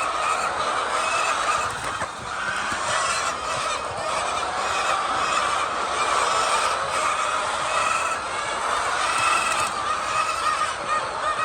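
A large flock of laying hens clucking all at once, a steady unbroken din of overlapping calls.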